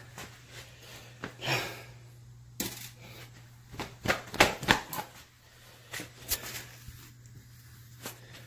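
Handling noise: scattered sharp clicks and taps with some rustling, loudest in a quick cluster about four to five seconds in, over a steady low hum. Near the end, a cloth is rubbed over the billet aluminium tail light housing.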